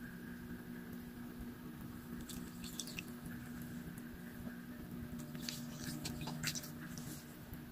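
A person biting and chewing hard ice, with scattered crisp crackles and crunches, the clearest a little past the middle.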